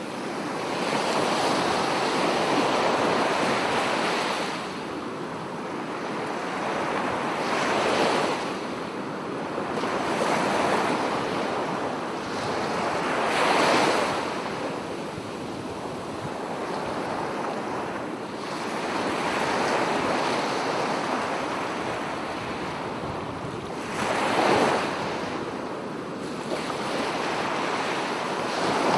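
Ocean waves breaking, the surf swelling and falling away every few seconds, with three breaks louder than the rest.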